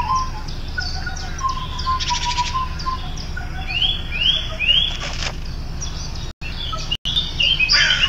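Bird-like chirping and whistling: short whistled notes, a run of steady notes and three quick rising chirps about four seconds in, over a low steady hum. The sound cuts out abruptly twice near the end.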